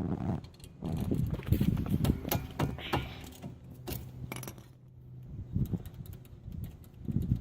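Metal tools and parts clinking and knocking as they are handled, with a low steady hum for about two seconds in the middle.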